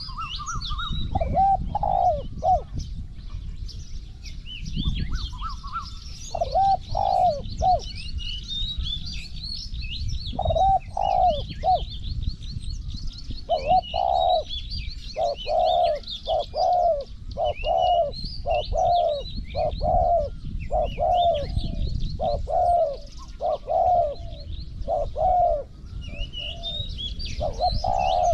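Spotted doves cooing. A few phrases come in the first half, then a long run of coos at about one a second. Small birds chirp and trill higher up, over a steady low noise.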